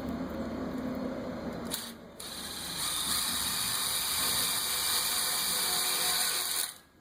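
Power drill driving screws: a steady run of under two seconds, then after a brief pause a longer, higher-pitched run that stops suddenly near the end.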